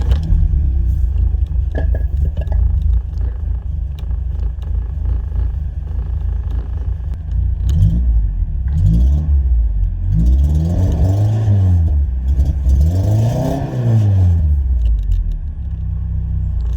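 Volkswagen Mk2 GTI's four-cylinder engine idling through a freshly modified exhaust, then revved: a few short blips about eight seconds in, followed by two long revs that rise and fall. It sounds louder.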